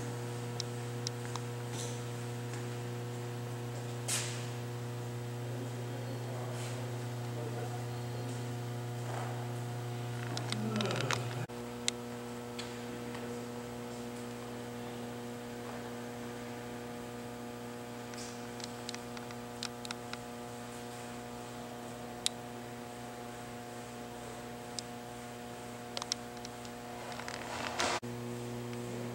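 Steady electrical mains hum: a low buzz with a stack of even overtones, changing slightly about eleven seconds in and again near the end. A few faint clicks and light knocks sound over it.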